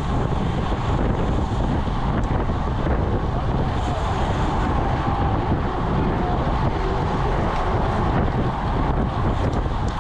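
Steady wind rushing over the microphone of a camera on a road bike riding at about 24 mph, mixed with road noise from the tyres on asphalt.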